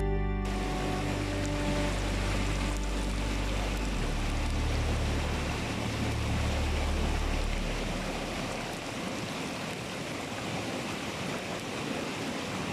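Chicken drumsticks deep-frying in a pan of hot oil, a steady sizzle and bubble.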